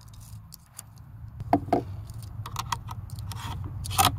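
Ruger MKII .22LR pistol magazine being handled and pushed into the stainless pistol's grip: a series of light metallic clicks and scrapes, with a sharper click just after four seconds as the magazine goes into the grip.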